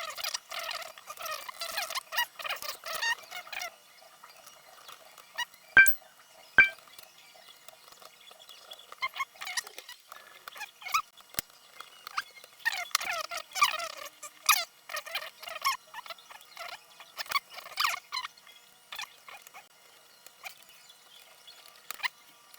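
Small plastic clicks, taps and rustling from laptop display parts being handled and fitted during reassembly, with two sharper knocks about six seconds in and another a few seconds later.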